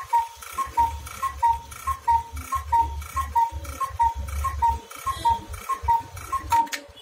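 Cuckoo clock calling the hour: its bellows-and-pipe cuckoo gives repeated two-note calls, high then low, about three calls every two seconds. The calls stop shortly before the end.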